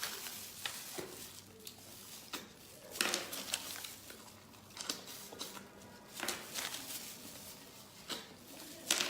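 Spicy snails being sucked out of their shells by mouth: a string of short, sharp sucking slurps at irregular gaps of a second or two.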